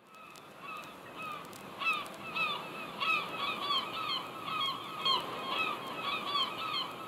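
Birds calling over and over in short, hooked, honking calls, about two a second, over a steady hiss of surf; the sound fades in at the start.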